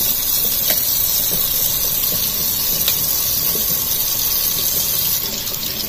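Kitchen faucet running steadily into a stainless steel sink, the stream splashing over radishes and their leafy greens as they are rinsed by hand.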